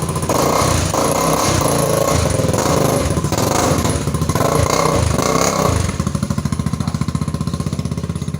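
Loud street sound system (a 'robozão' sound rig) blasting heavy, distorted bass-laden sound, turning into a fast, even pulsing rumble over the last couple of seconds.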